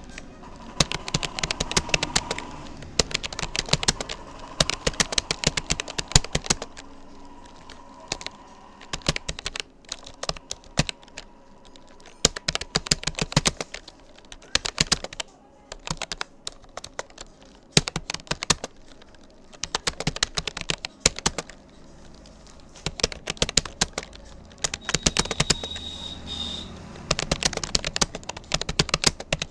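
Keys of a Rapoo computer keyboard clicking in quick runs, broken by short pauses: steady touch typing during a typing speed test, at about 39 words a minute.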